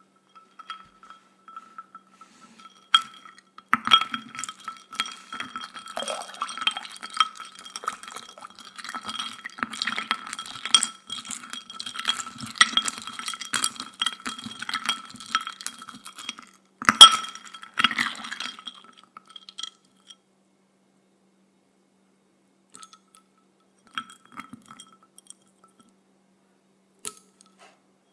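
Fingers tapping and rubbing inside a white porcelain bowl, making it ring with a clear, steady tone under a quick run of light clinks. There is one sharp, louder strike about seventeen seconds in. The taps stop after about twenty seconds, with a few scattered clinks near the end.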